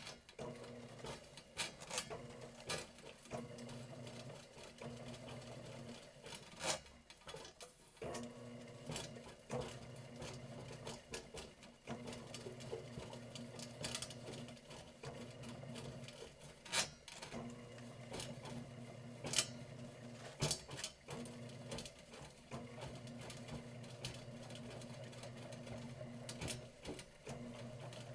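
Electric drum drain auger running steadily as its spinning cable is fed by hand into a drain cleanout, with irregular sharp clicks and knocks over the motor's hum.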